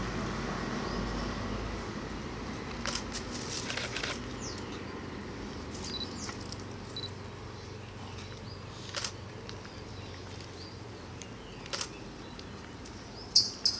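Camera shutters firing: about ten sharp clicks at irregular intervals, the loudest a pair near the end, over a faint steady background hum, with a few faint high chirps.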